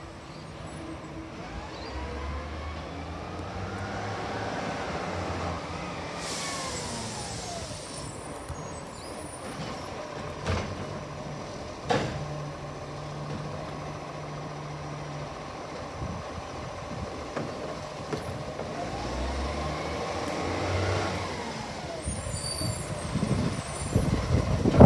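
Garbage truck's diesel engine running and revving up and back down twice, with a hiss of air brakes about six seconds in and a few sharp knocks along the way. A loud bang comes at the very end.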